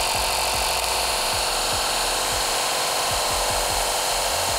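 Small portable air compressor running steadily, pumping air into a car's rear air shocks.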